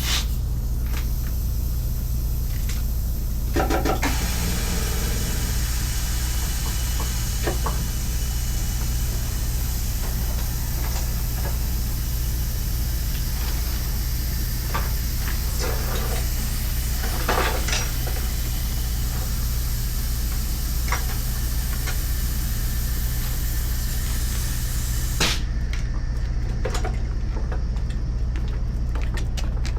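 An engine running steadily, with a hiss over it that cuts off suddenly about 25 seconds in, and a few metal clanks and knocks of tyre work.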